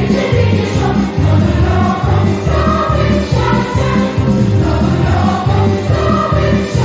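A children's choir singing over an instrumental backing track with a steady, regular bass beat.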